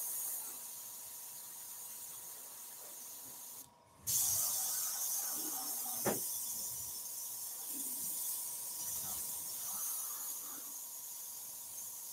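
Spraycraft SP50K dual-action, suction-feed airbrush spraying ink, a steady high hiss of air. It cuts out briefly about three and a half seconds in and comes back louder. There is a single click around six seconds in.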